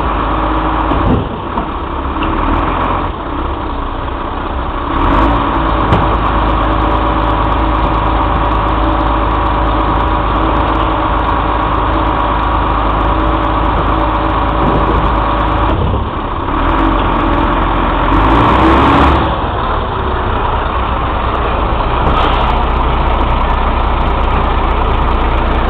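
Diesel engine of a DAF CF side-loader refuse truck running steadily, with a few knocks from the grabber arm and bin near the start. Later the engine note changes as the truck pulls forward and passes close by.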